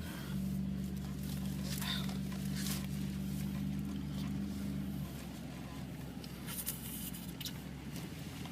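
Steady low hum, with a few faint ticks over it; its higher tones drop out about five seconds in, leaving a lower rumble.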